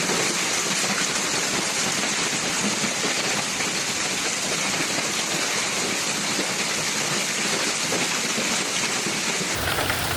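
Heavy rain pouring down in a steady, dense hiss. About nine and a half seconds in, the sound changes abruptly and gains a deeper rumble.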